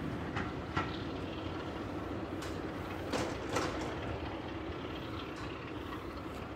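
A train running on railway tracks: a steady low rumble with a few sharp metallic clanks, twice near the start and a cluster around the middle.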